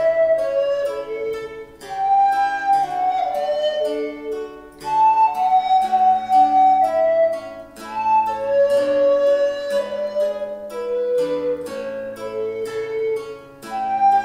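Recorder playing a flowing melody of held notes over a harpsichord continuo that plucks a steady chordal accompaniment with a moving bass line.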